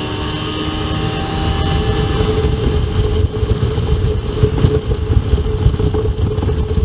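Jet ski engine running steadily at high revs after speeding up, getting louder over the first few seconds, with a heavy, choppy low rumble underneath.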